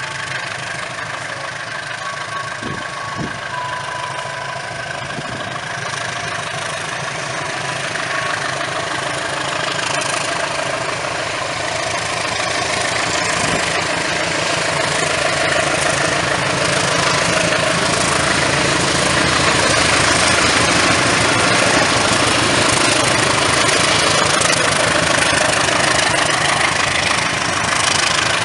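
Diesel-electric locomotive hauling a passenger train, its engine running steadily and growing louder as it approaches and draws level.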